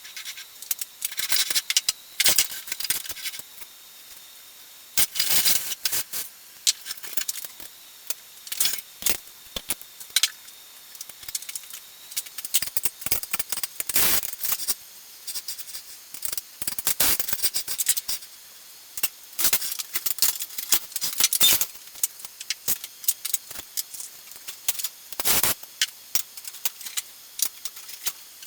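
Irregular clicking, rattling and scraping of small hard parts being handled, in uneven bursts with short pauses between them.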